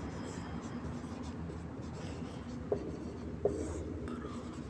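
Whiteboard marker scratching across a whiteboard as words are handwritten, with two short clicks about three-quarters of a second apart past the middle.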